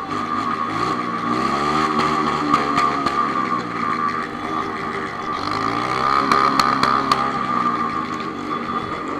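Honda CB1000 inline-four engine blipped twice from idle, its pitch rising and falling each time, over a steady high-pitched tone.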